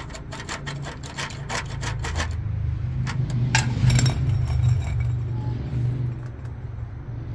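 Socket wrench working a plastic-capped lug nut, the cap spinning on the nut: a quick run of clicks over the first two seconds, then a few scattered knocks a little past the middle. A steady low hum runs underneath.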